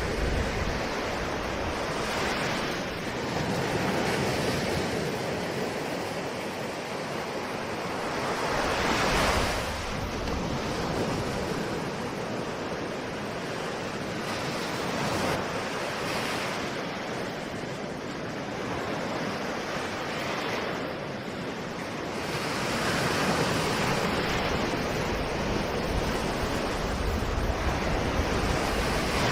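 Ocean waves breaking and washing on the shore, the surf swelling and fading every few seconds, with the biggest surge about nine seconds in.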